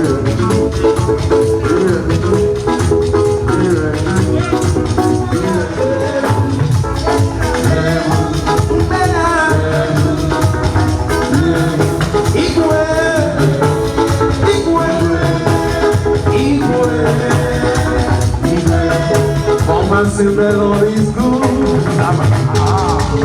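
Music with a steady beat, shaker-like rattling percussion and drums under melodic instruments.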